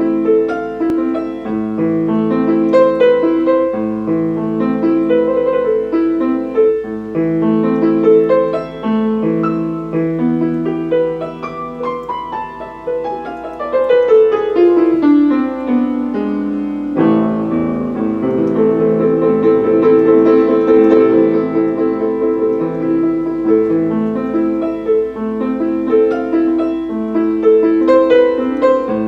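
Piano playing a slow chordal piece with a Steinway grand tone; around the middle a descending run leads into a newly struck phrase.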